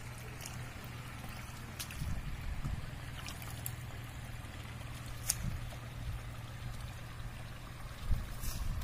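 Horizontal single-cylinder diesel engine of a two-wheel paddy hand tractor, fitted with a 'serigala' exhaust, running steadily. Water and mud slosh around its cage wheels in the flooded field, with a few sharp clicks.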